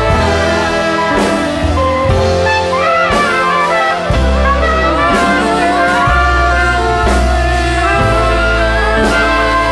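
Background music: a jazzy piece with saxophone and trumpet over a strong bass line, with a steady beat about once a second.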